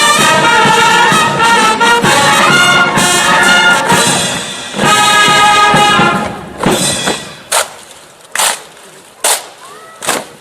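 Military brass band playing a quick march with trumpets and trombones, which breaks off about six seconds in. Five or six sharp separate slaps or thuds follow, roughly a second apart: the rifle drill's movements sounding on their own.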